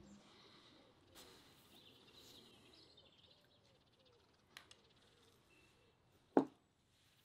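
Quiet outdoor background with faint bird chirps, a small click, and one short sharp knock about six seconds in.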